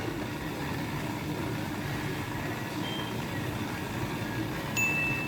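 Automatic bean-to-cup coffee machine running steadily as it froths and pumps milk into a latte. A brief high tone sounds near the end.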